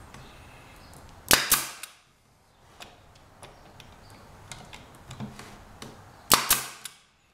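Nailer/stapler firing two brads into the wooden support of a plywood panel frame, about five seconds apart; each shot is a sharp snap followed closely by a second click.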